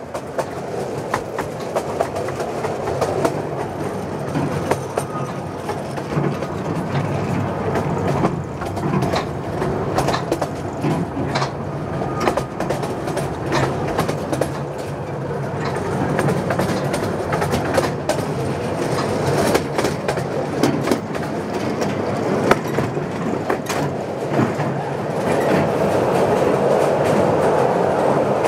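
Open passenger cars of a narrow-gauge mountain railway rolling along the track, with steady running noise and irregular clicks from the wheels over the rails. Near the end the train enters a rock tunnel and the running noise grows louder and echoes off the walls.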